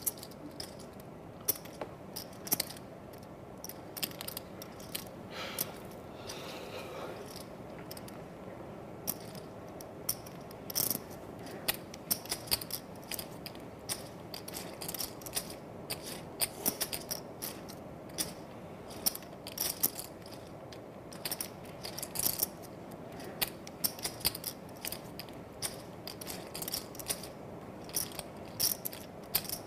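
Poker chips clicking together as a player handles a stack at the table: a run of short, sharp, irregular clicks over a faint steady room hum.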